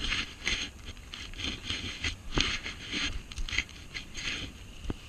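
Irregular close-up scraping and rustling on coarse sand, about a dozen short scrapes with a few sharp ticks, as fishing line is handled.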